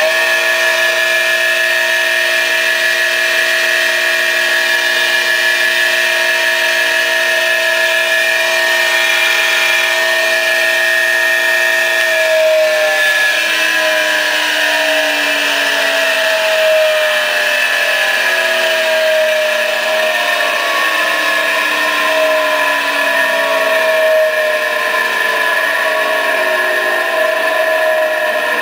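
A 6 by 12 inch bench surface grinder with a 3/4 horsepower motor running with its wheel spinning: a loud, steady whine made of several tones. From about twelve seconds in, the tones keep sliding down in pitch and back, over and over.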